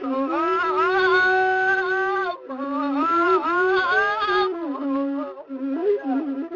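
Ethiopian azmari music led by a masinko, a bowed single-string fiddle. It plays two long, wavering held notes over a lower line that steps between two pitches, then moves into quicker, busier notes near the end.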